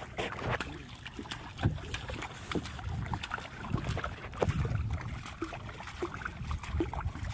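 Water splashing and lapping around a kayak, with wind buffeting the microphone and scattered small knocks and clicks.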